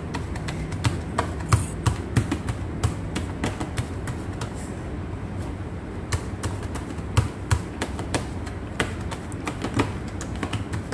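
Fingers pressing and patting sticky, elastic watermelon mochi dough flat in a plastic container, making a run of irregular small sticky smacks and clicks, several a second, as the fingertips press in and pull away. A low steady hum sits underneath.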